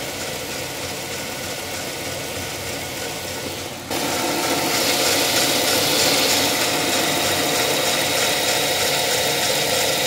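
2006 Dodge Charger engine idling, its accessory drive belt and pulleys turning. About four seconds in, a louder steady hiss with a high whine comes in suddenly and holds.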